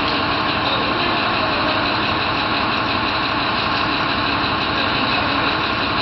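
Bus engine idling: a steady, even running noise that does not change.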